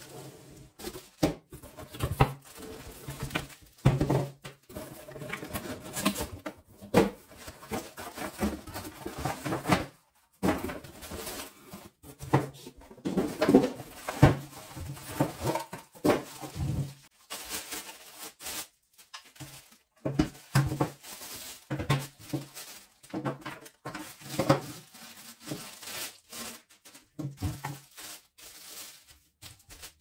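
Unboxing handling noise: plastic wrapping crinkling and rustling, cardboard scraping and light knocks as plastic vacuum-cleaner parts are lifted out of a box and set down on a table, in irregular bursts with short pauses.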